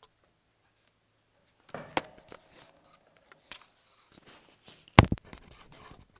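Scratching and rustling against a hard plastic cage tunnel, starting about two seconds in, with a sharp tap soon after and a louder knock about five seconds in.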